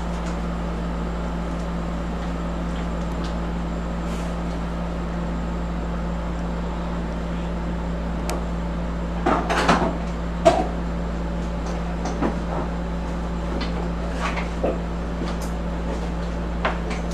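A steady low hum with scattered light clicks and knocks, the loudest cluster about nine to ten seconds in.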